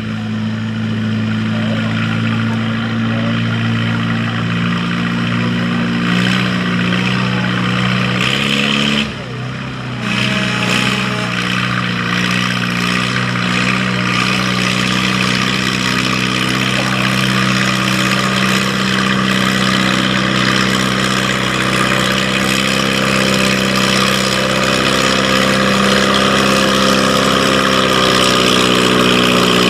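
Farm pulling tractor's engine running hard at steady high revs. There is a brief break about nine seconds in, and the pitch climbs slowly near the end.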